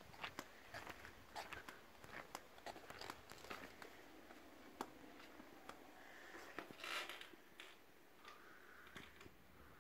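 Near silence with faint, irregular clicks and a brief rustle about seven seconds in: footsteps on tile and the handling noise of a hand-held phone.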